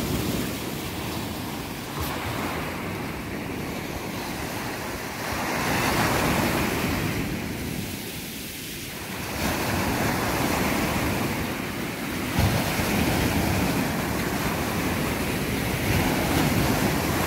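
Sea surf breaking and washing up around the shallows, swelling and easing every few seconds; the waves are running strong.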